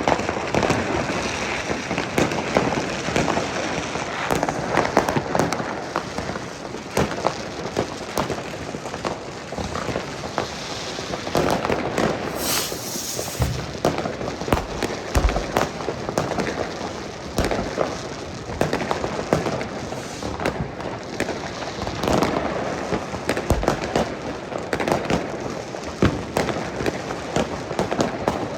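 New Year's Eve fireworks: a dense, unbroken crackle and popping of many firecrackers and rockets going off at once, with frequent sharper bangs among them.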